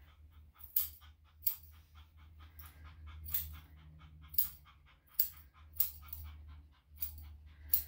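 Grooming scissors snipping the hair between a Yorkshire Terrier's paw pads, a sharp snip roughly once a second, about ten in all. Under them, the small dog's quick, soft panting.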